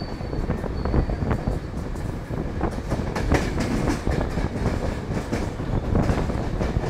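Mumbai suburban EMU train running at speed, heard from aboard: a loud rumble and wind with rapid, irregular clacking of the wheels over rail joints and points.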